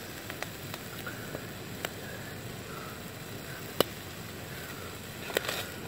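Bacon sizzling in a frying pan on a portable gas camping stove: a steady hiss with a few scattered sharp pops, the loudest a little past halfway.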